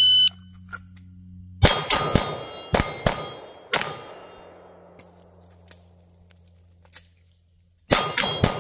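Shot timer beeps once, then a pistol fires in quick groups: three fast shots, two shots, then a single shot, each followed by metallic ringing from steel targets. After a pause of about four seconds, three more fast shots near the end.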